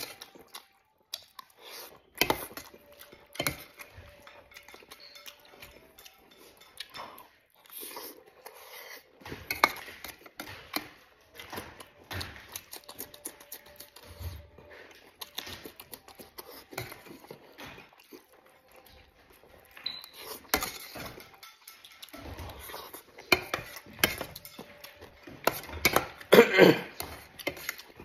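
A metal spoon scraping and clinking on an enamel plate as food is scooped up, in irregular bursts with mouthfuls chewed in between; the loudest run of scraping comes near the end.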